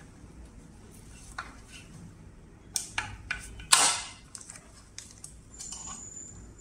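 Screwdriver loosening the screws that hold the front section to an electric scooter's deck: scattered small metal clicks and scrapes, with a louder clatter just before four seconds in. A faint high steady tone starts near the end.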